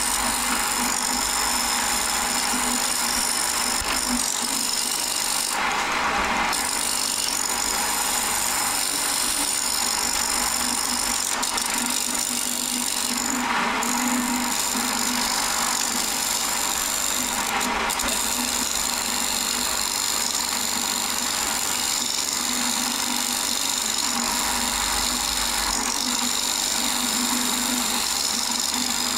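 A wood lathe spins a glued-up stacked bowl blank of Cuban mahogany and padauk while a gouge cuts it, bringing it into round. There is a steady scraping of the tool over the hum of the lathe, swelling briefly with heavier cuts about six, thirteen and eighteen seconds in.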